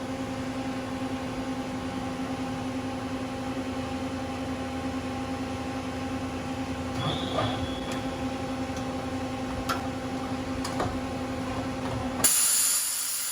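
1990 Mazak MT V-550A CNC vertical mill running with a steady multi-tone machine whine and a few light clicks while it goes through an automatic tool change. Near the end comes a loud burst of air hiss, lasting about two seconds.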